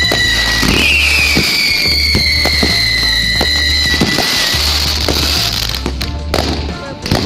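Fireworks going off: a high whistle that falls slowly in pitch and fades after about four seconds, over repeated bangs and crackles that grow sharper near the end. Music with a pulsing bass plays underneath.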